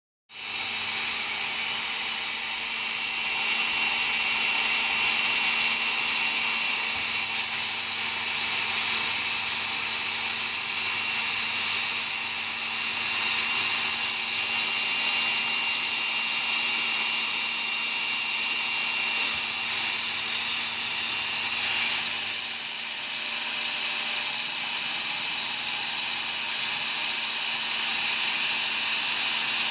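Electric drill motor running continuously at a steady speed, with a steady high-pitched whine over a hiss.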